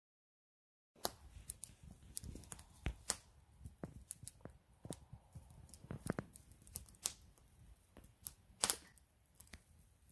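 Irregular sharp clicks and small crackles, a few of them louder, over a faint low rumble, starting about a second in after silence.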